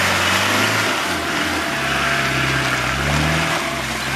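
Land Rover Defender 110's engine running as it drives past on a muddy track. The engine note dips about a second in, rises over the next two seconds, then drops back.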